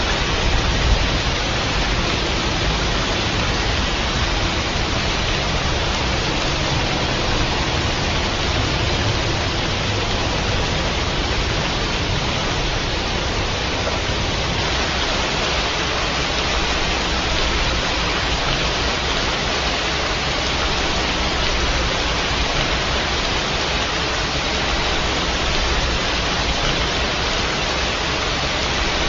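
Rain falling steadily, a constant even noise with no thunder, and one brief louder tick about a second in.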